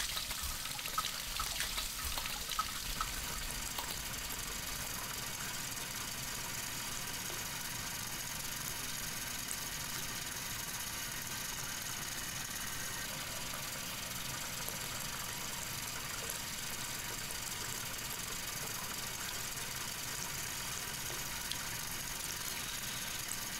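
A bathroom tap running steadily into a sink, with a few small splashes in the first few seconds.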